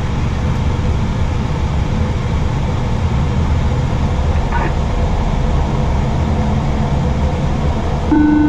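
Steady low rumble of an Airbus A320 flight deck's background noise before engine start. A short, loud electronic tone sounds near the end.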